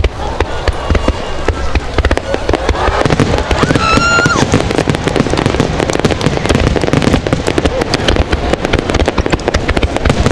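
Fireworks bursting in rapid succession, a dense barrage of bangs and crackles. A brief high steady tone sounds about four seconds in.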